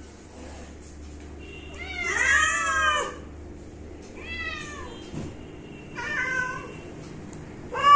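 Several domestic cats meowing in turn, four meows in all: a long, falling meow about two seconds in, then shorter ones. Hungry cats begging to be fed.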